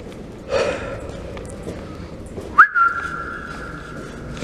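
A person whistling one long held note, sliding quickly up to pitch about two and a half seconds in and then holding it steady.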